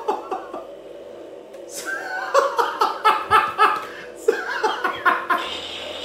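A man laughing heartily in two bouts of rapid, pulsing chuckles, the first starting about two seconds in and the second about four seconds in.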